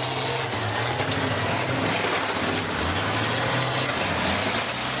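School bus engines running and revving in a demolition derby arena, the engine pitch rising and falling over a steady background noise.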